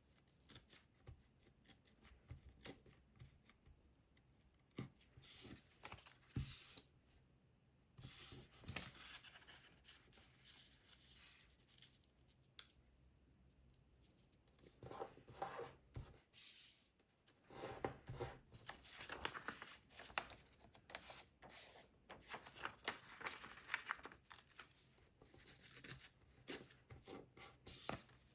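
Paper being folded and creased by hand: faint, intermittent rustling and crinkling in short bursts with pauses between them.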